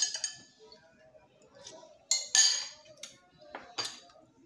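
Metal spoon clinking and scraping against a soup bowl: a sharp clink at the start, a louder, longer scrape about two seconds in, and two quick clinks near the end as the bowl is set down.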